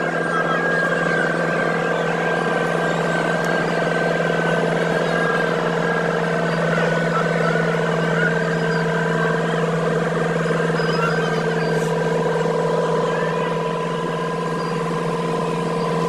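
Asphalt paver's diesel engine running at a steady speed: a constant drone with steady higher tones above it.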